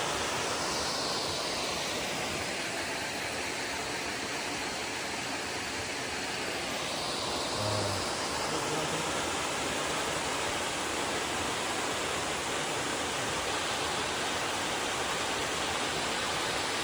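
Small waterfall pouring into a pool: a steady, even rush of falling water.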